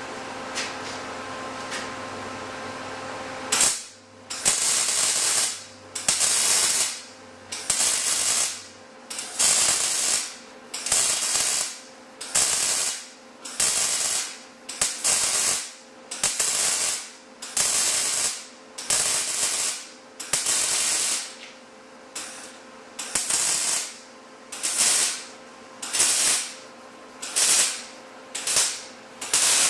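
MIG welder arc crackling in a long run of short bursts, roughly one a second, as welds are laid in short stitches on steel square tubing with wide open root gaps. A steady electrical hum comes before the first burst.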